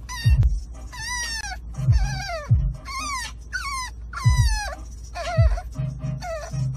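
An animal's high whining calls, each one short and falling in pitch, repeated a little under twice a second over music with a deep beat.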